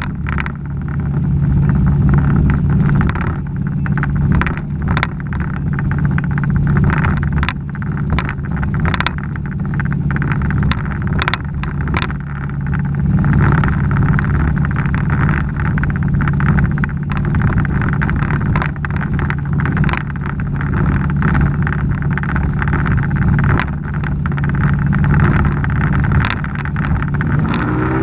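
Outboard motor on a 15 ft Alumacraft aluminium jon boat running steadily under way: a loud, even low drone with frequent short knocks over it. The pitch shifts near the end.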